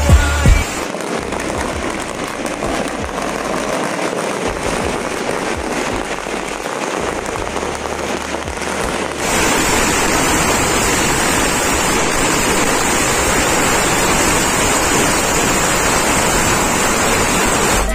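A long string of small firecrackers going off in rapid, continuous crackling, so dense that it blurs into a rain-like hiss. About nine seconds in the crackling gets louder and sharper.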